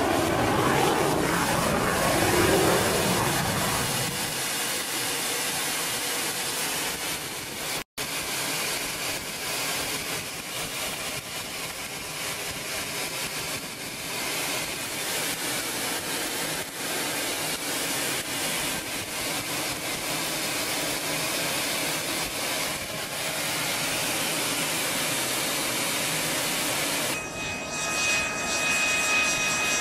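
Aero L-39 Albatros jet's turbofan engine and rushing airflow, heard from inside the cockpit as a steady noise that is louder for the first few seconds, with a brief dropout about eight seconds in. Near the end the sound changes to the engine's steady high whine as the jet taxis on the ground.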